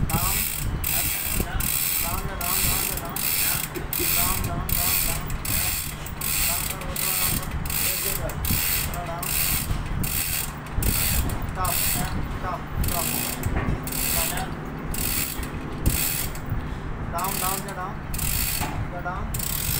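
Manual chain hoist (chain block) being worked: the ratchet pawl clicking at an even two to three clicks a second, with the steel chain clinking. A steady low hum runs underneath.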